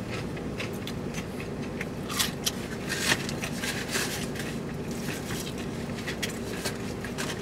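Fried fast food being handled and eaten from a takeout container: a scattered run of small crackles, scrapes and crinkles as the food and packaging are picked at and bitten into, over a steady low hum in the car's cabin.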